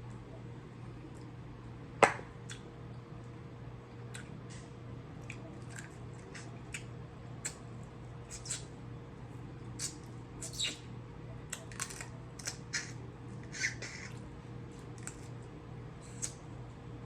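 Seafood shells, crab legs and shrimp, cracking and clicking as they are broken open while eating. One loud crack comes about two seconds in, then a scatter of smaller clicks, over a steady low hum.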